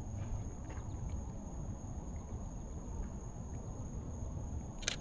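Outdoor trail ambience with a steady low rumble and a thin, steady high tone, then a single camera shutter click from a Canon EOS RP near the end.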